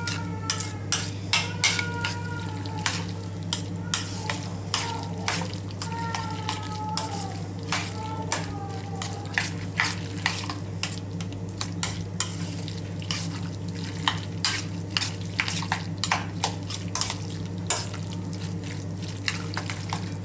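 Metal spoon scraping and clinking against a stainless-steel bowl as mango salsa is stirred and mixed, many quick irregular clicks throughout, over a steady low hum.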